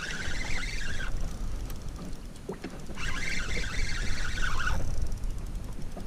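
Spinning fishing reel being cranked in spells, whirring for about a second at the start, again for nearly two seconds past the middle, and starting once more at the end, as a fish that has stopped fighting is wound up from depth. A steady low rumble of wind and water runs underneath.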